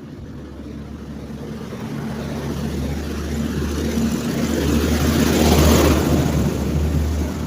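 A motor vehicle passing close by on the road, its engine and tyre noise growing louder to a peak about five and a half seconds in, then fading.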